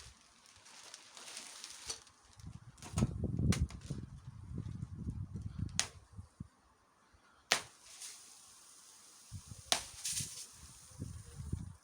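Homemade dagger striking a target in cutting tests: four sharp strikes a couple of seconds apart, with rustling handling noise between them.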